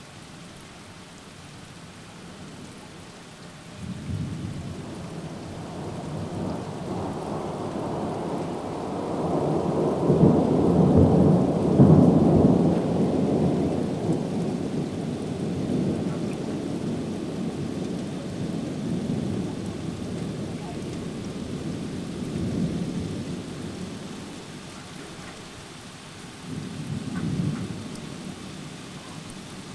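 A long peal of thunder breaks in suddenly about four seconds in, rolls and builds to its loudest around the middle, then rumbles away slowly, with a smaller second surge near the end. Rain falls steadily underneath.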